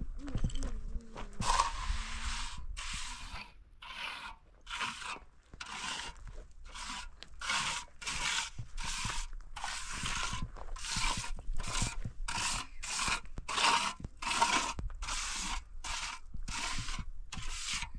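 Repeated crunching, scraping strokes at a steady pace of about one to two a second, like a tool or hand working a gritty surface.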